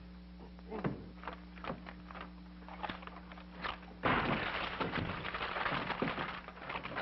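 A few scattered knocks and thuds, then about four seconds in a venetian blind comes down with a sudden loud clatter of slats that rattles on for two or three seconds. A steady low hum from the old film soundtrack runs underneath.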